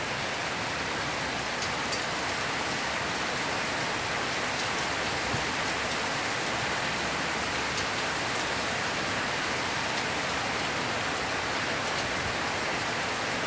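Heavy downpour: steady rain hissing down on the paved street and pavement, with a couple of faint drip ticks about two seconds in.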